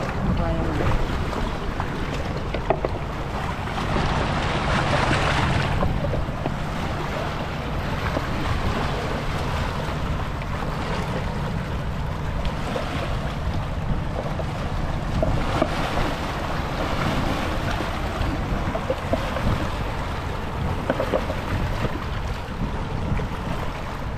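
Strong wind buffeting the microphone with a steady low rumble, over choppy sea waves washing against a rocky shore; a louder surge about four seconds in.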